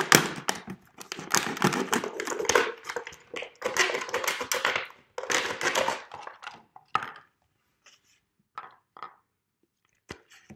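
Utility knife blade cutting through the thin wall of a 2-litre plastic bottle: a dense crackling, crinkling scrape for about six and a half seconds. Then a few faint knocks and a thump near the end.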